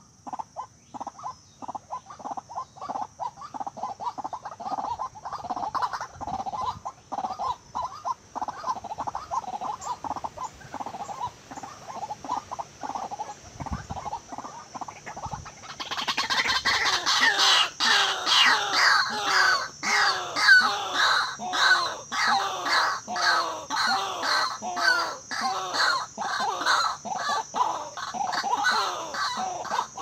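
White-breasted waterhens calling over and over in a rapid run of croaking notes, several a second. About halfway through the calling becomes suddenly much louder and fuller, with each note falling in pitch. A faint steady high tone runs underneath.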